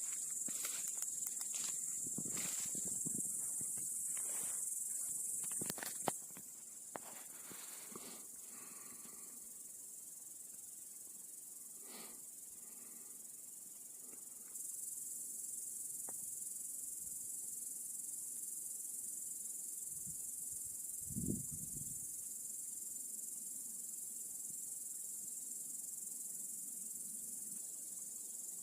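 Crickets chirring steadily in a high, continuous band, with a few clicks and knocks in the first several seconds and a low thump about 21 seconds in.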